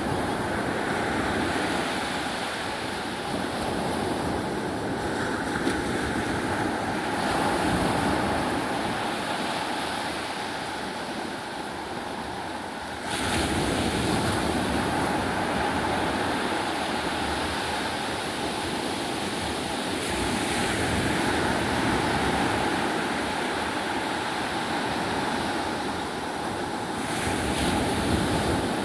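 Sea waves washing up the beach at high tide: a steady rush of surf that swells louder every several seconds, with a sudden rise about thirteen seconds in.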